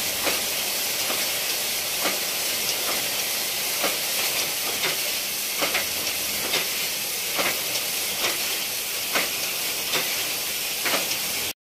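Steady high hiss of sock-knitting machines running, with a soft tap a little faster than once a second from footsteps in sandals on a concrete floor. The sound cuts off suddenly near the end.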